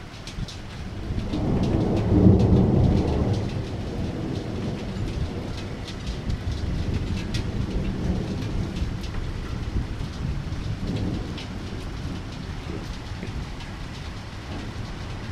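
Thunder rumbling: it swells about a second in to its loudest at two to three seconds, then rolls on and slowly fades. Rain falls throughout, with scattered drop ticks.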